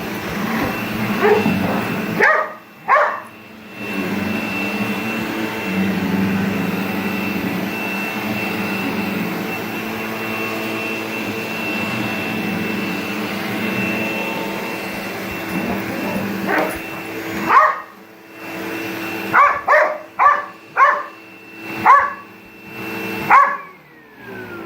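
Household vacuum cleaner running with a steady whine while a dog barks over it: a few barks near the start, then a rapid string of barks later on. Near the end the vacuum cuts off and winds down, its pitch falling.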